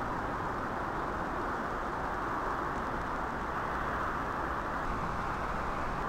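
Steady outdoor ambient rush, even and unchanging, with no distinct events standing out.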